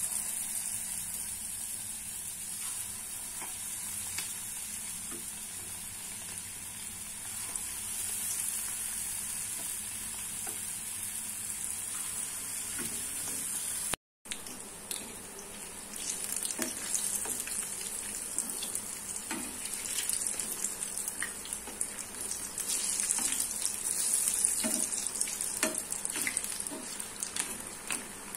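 Battered potato chops (aloo chop) deep-frying in hot oil: a steady high sizzle. It breaks off for a moment near the middle, then comes back busier, with crackling and popping as a panful of pieces fries.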